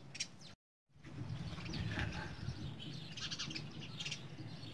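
Small birds chirping in short, repeated calls over a low background rumble, with a moment of dead silence about half a second in.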